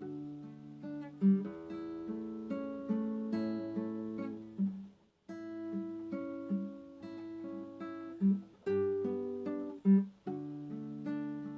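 Solo acoustic guitar (violão) playing slow, gentle plucked notes and chords, with a brief pause about five seconds in.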